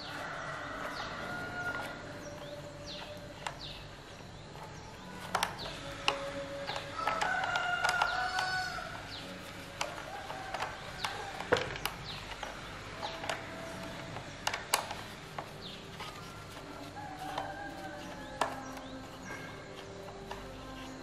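A rooster crowing about seven seconds in, with chickens clucking now and then. Scattered sharp clicks come from a screwdriver and a T-handle hex key working the chainsaw's screws.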